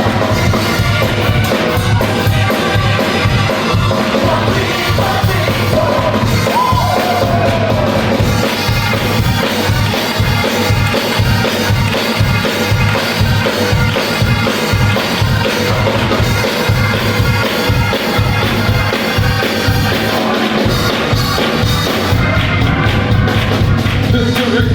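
Gospel choir singing with a band, a steady drum beat driving the song.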